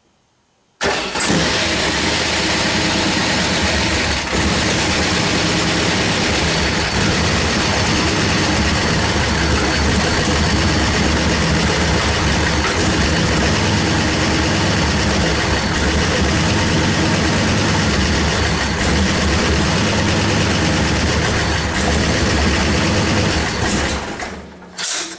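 Big-block Chevrolet V8 firing on the first crank and running on its new Megasquirt 3 Pro full sequential fuel injection with no throttle applied. It runs loud and steady for about 23 seconds, then drops off sharply near the end: with no idle air control valve fitted, it cannot hold an idle.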